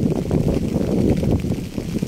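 Rain recording: a continuous, deep and muffled rushing noise with a dense, fast patter running through it and little of the usual high hiss of rain.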